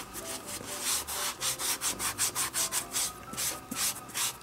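Fingers rubbing oil into the leather pocket of an old catcher's mitt: a rhythmic back-and-forth rubbing, about three strokes a second. The oil goes into dry, neglected leather to keep it from cracking.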